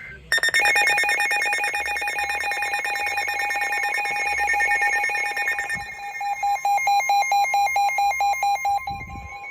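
Several NOAA weather radio receivers sounding their electronic alert alarms at once for a severe thunderstorm warning: rapid trilling, pulsing beeps layered over one another. About six seconds in the pattern turns to a slower, choppier pulsing, with a steady tone underneath.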